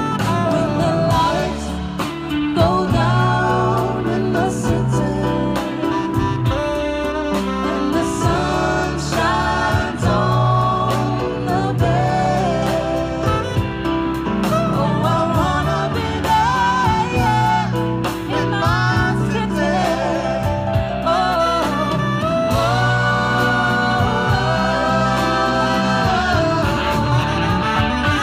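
A live soul and R&B band playing, with singers over drum kit and electric guitar.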